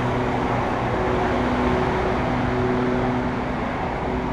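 Steady low mechanical hum over an even hiss of city background noise, with no single event standing out.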